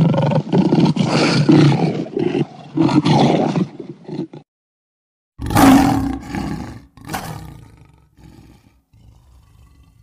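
Lion roaring: a long, rough roar, a second's pause, then a second roar that trails off into a series of short, fainter grunts.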